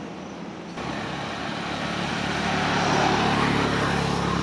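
A motor vehicle passing on the road: tyre noise and a low engine hum come in suddenly about a second in, then swell and are loudest in the second half.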